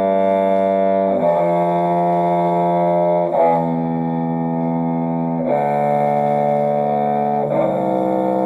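A low bowed string instrument playing a C major scale downward in long held notes, one every two seconds or so, stepping down to end on low C.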